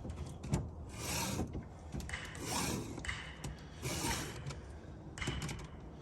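Stihl 2-in-1 file guide being pushed across a chainsaw chain's cutter tooth, sharpening it, in four even rasping strokes about a second and a half apart. A few light clicks come about five seconds in.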